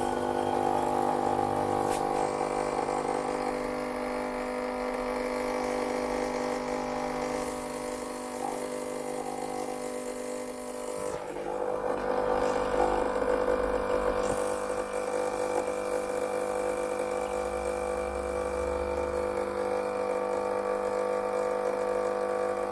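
Gaggia Viva Deluxe espresso machine's pump humming steadily as it pushes rinse water through the portafilter into a cup during the new machine's first flush. The hum's pitch shifts about eleven seconds in.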